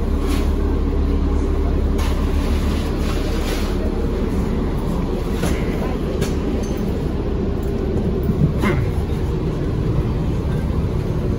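City transit bus running, heard from inside the passenger cabin: a steady low engine and road rumble with a few short rattles and clicks.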